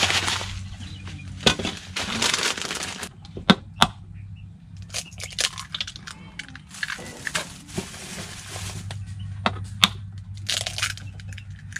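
A plastic breadcrumb packet crinkling as it is handled and torn open, in several bursts, with a few sharp clicks in between.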